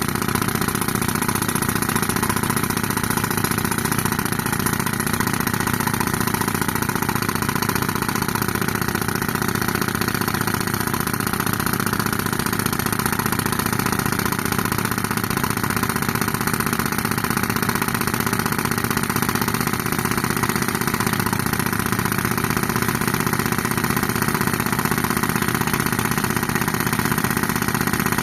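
Tractor engine running at a steady speed, driving an air compressor.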